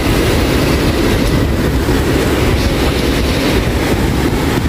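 Waves of a rough sea at high tide breaking and washing up the beach: a loud, steady rumbling wash.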